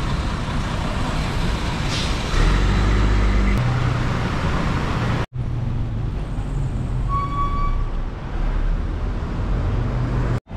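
City street traffic: a bus engine running close by, loudest about two to three seconds in, over the steady noise of passing cars. A short high beep sounds near the middle, and the sound breaks off for an instant twice.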